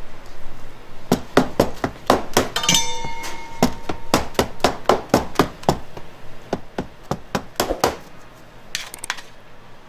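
Irregular sharp knocks and clinks, roughly three a second, as a scraper is worked through batter in a stainless baking tray; a few strikes ring briefly like metal.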